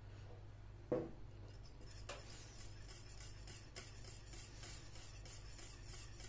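Wire balloon whisk stirring thick cooked milk-and-starch cream in a stainless steel saucepan: faint, even scraping ticks about three a second. There is a single knock about a second in.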